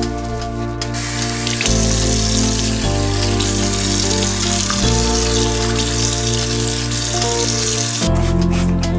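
Tap water running into a bathroom sink basin, a steady splashing hiss that starts about a second in and stops near the end, over background music.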